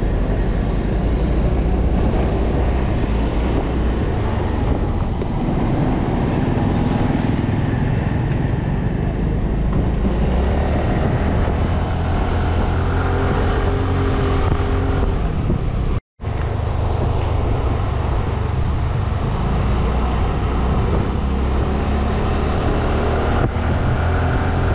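Yamaha 125 cc scooter on the move, its engine running as it picks up speed, mixed with road and wind noise. The sound cuts out completely for a moment about two-thirds of the way through.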